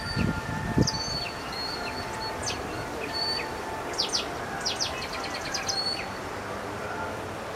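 Wild birds chirping: scattered short, high calls and a quick run of about eight notes a little past the middle, over a steady background hum. A few low thumps sound right at the start.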